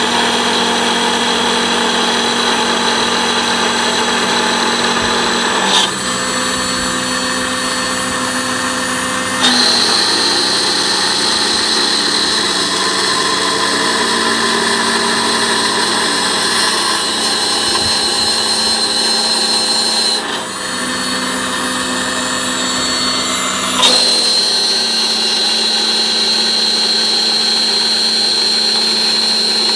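CNC machine's spindle and cutter machining aluminium sheet: a loud, steady high-pitched whine with a lower hum. Its tone shifts four times as the cut changes.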